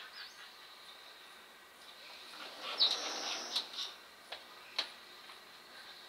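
Birds chirping, with a short rush of noise a little before halfway, then three sharp, separate taps from a woodpecker pecking at the wood of its nest hole.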